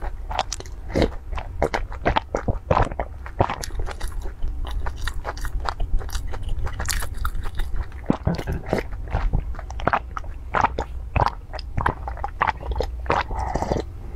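Close-miked eating mouth sounds: a dense run of crunchy bites and wet chewing clicks, over a steady low hum.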